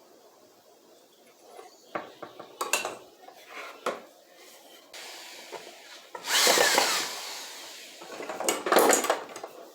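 Wooden stool parts being handled on a workbench: scattered knocks and clicks of wood on wood, then two louder stretches of noise, each about a second long, in the second half.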